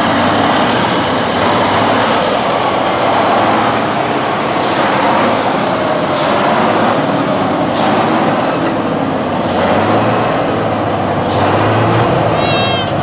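Tatra 815 8x8 truck's diesel engine running under load as the truck crawls through mud. Short hissing bursts come at a regular rhythm, about every second and a half.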